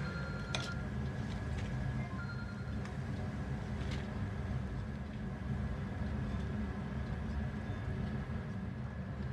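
Steady low background rumble with a faint higher hiss, broken by a few light clicks about half a second and four seconds in.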